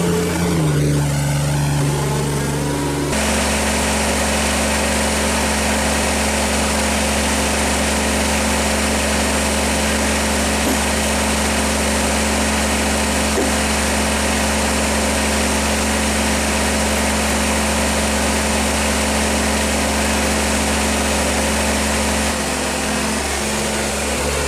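Tractor engine running steadily. Its speed steps up about three seconds in, holds, and changes again near the end.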